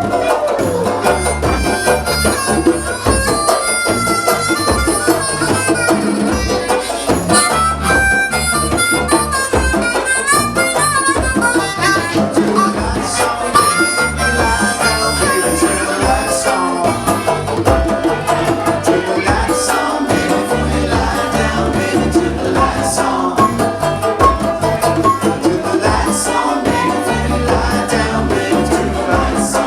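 Live band playing an instrumental stretch with a harmonica taking a lead of quick note runs over acoustic guitar and a steady, repeating bass line.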